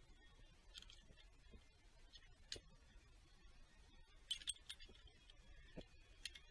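Faint, scattered metal clinks and clicks as a diesel injector hold-down clamp and its screw are handled and fitted, with a quick cluster of clinks about four seconds in.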